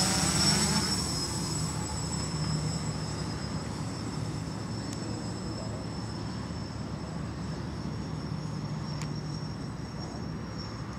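Small brushless-motor FPV quadcopter flying overhead with a steady propeller buzz and high whine. It is loudest at first and fades over the first few seconds as the quad flies away, leaving a fainter steady drone.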